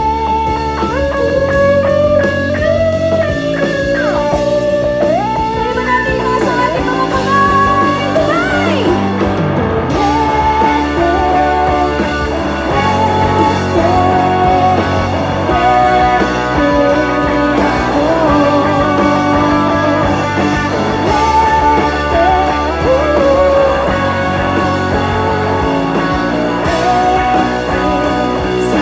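Live rock band playing at full volume: electric guitars, bass guitar and drum kit, with a lead melody that bends and glides over them.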